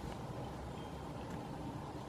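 Steady, even low rumble with a hiss of a Boeing 737 MAX 8 jet airliner at cruise altitude.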